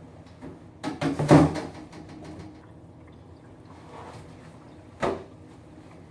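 Indoor knocks and handling noise: a cluster of knocks and rustles about a second in, and one sharp knock about five seconds in.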